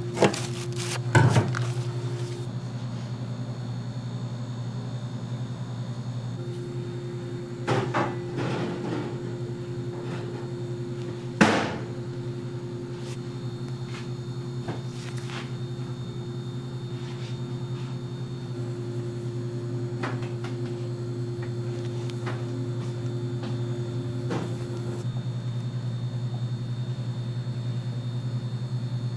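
Steady low hum of kitchen machinery, broken by a few sharp knocks and clatters, the loudest about eleven seconds in.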